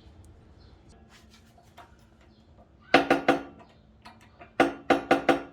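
Hammer blows on steel tooling, ringing with each strike, driving a bearing into place on a Dana 35 differential. There are three quick blows about three seconds in, then four more about a second and a half later.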